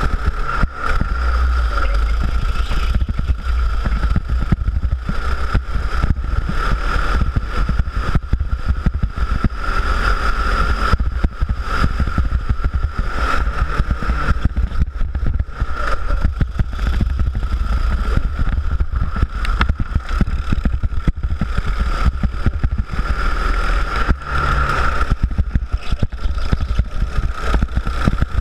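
Go-kart engine running at speed around a track, its note holding fairly steady while swelling and easing. Heavy wind buffeting and vibration on the microphone.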